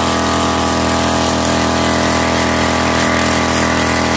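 Knapsack power sprayer's small petrol engine running steadily while the worker sprays through the hose and lance.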